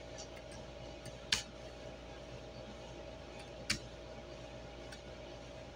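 Two sharp clicks a couple of seconds apart over a steady faint room hum.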